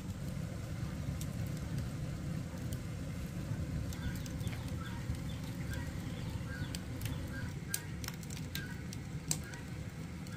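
Soft rustling of a towel and fleece baby clothes being rubbed and handled on a baby monkey, over a steady low rumble. Faint short chirps recur from about four seconds in, and there are a few light clicks near the end.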